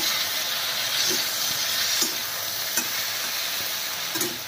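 Capsicum and onion sizzling as they stir-fry in a hot kadhai. A perforated metal spatula turns them, and it scrapes or clicks against the pan about once a second.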